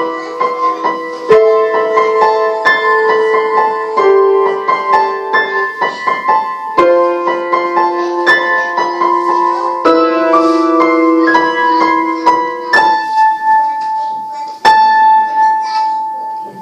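Upright piano played from sheet music: a steady run of struck notes over held chords, ending on a chord struck near the end that rings out and fades.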